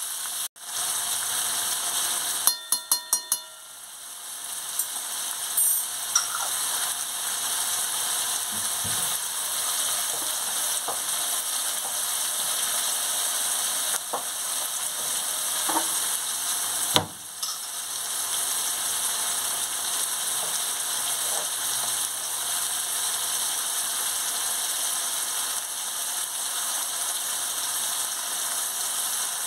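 Chopped red onions sizzling steadily in hot oil in a steel kadai. About three seconds in there is a quick run of ringing taps, and about halfway through a single sharp knock.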